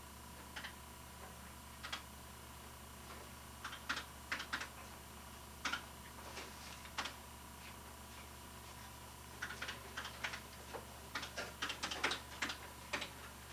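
Cash register keys being pressed, irregular clicks that come in quick runs, busiest in the last few seconds, as a price is rung up.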